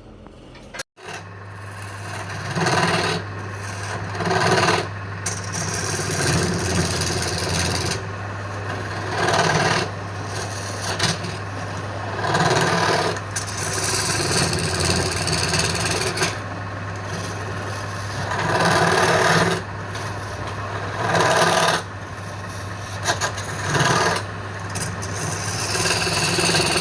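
Wood lathe running with a steady low hum while the spinning wood is worked by hand, giving repeated rasping passes every couple of seconds.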